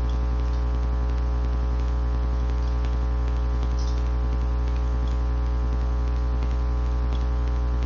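Steady electrical mains hum with a dense series of buzzing overtones, unchanging throughout, over a faint hiss.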